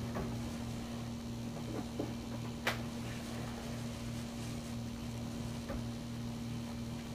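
Steady low mechanical hum with a pulsing undertone, with one sharp click a little under three seconds in and a few faint soft ticks.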